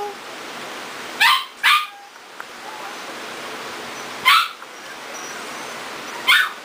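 A dog barking: four short, high-pitched barks, the first two close together about a second in, then one more after a couple of seconds and a last one near the end.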